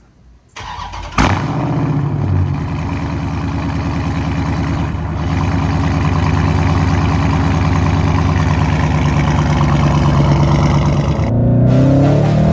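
Dodge Charger Scat Pack's 6.4-litre 392 HEMI V8 cranked and started, firing with a loud flare about a second in, then settling into a steady idle heard at the tailpipes. Music cuts in near the end.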